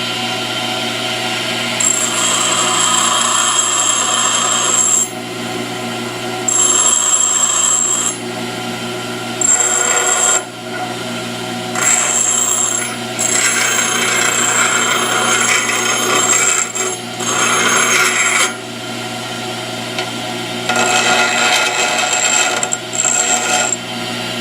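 Pedestal grinder running with a steady motor hum while a high-speed steel lathe tool bit is pressed against the wheel in repeated passes of one to three seconds. Each pass brings a gritty grinding noise with a high whine, as the tool's radius and relief are touched up.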